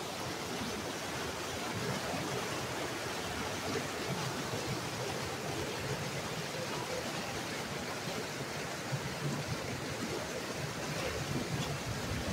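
Fast-flowing river rapids rushing and churning over rocks: a steady, unbroken rush of water.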